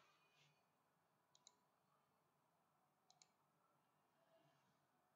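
Near silence with two faint computer mouse double-clicks, about a second and a half in and again about three seconds in.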